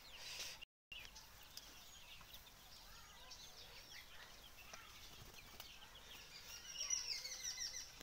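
Faint, scattered bird chirps and short calls, busiest near the end, over a quiet outdoor hiss; the sound cuts out completely for a moment just under a second in.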